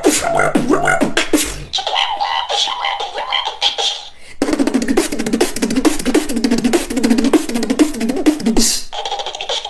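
Beatboxing: mouth-made drum hits and hummed tones. From about four seconds in comes a long run of rapid-fire clicks over a buzzing tone, which stops shortly before the end.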